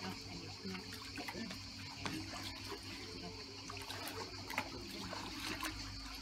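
Swimming-pool water lapping and trickling as a person wades through it, over a steady low hum.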